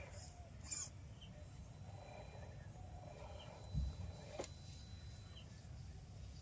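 Faint outdoor background with fowl calling a few times, over a low rumble and a steady thin high whine; a single low thump about four seconds in.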